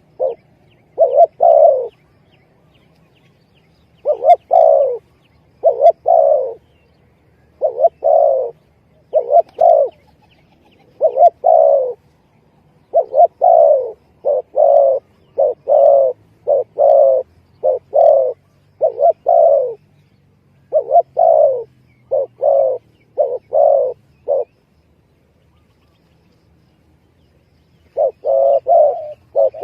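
Spotted dove (tekukur) cooing: repeated short, rolling coos in phrases of two to four notes, used as a lure call. The calls stop for a few seconds near the end, then start again.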